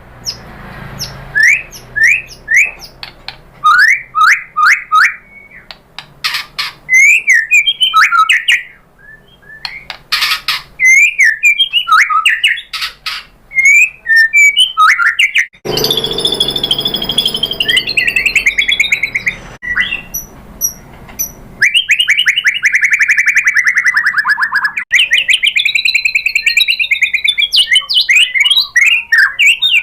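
White-rumped shama singing a loud, varied song: quick rising and falling whistles, fast trilled runs and a harsher chattering stretch about halfway through, with a long falling whistle.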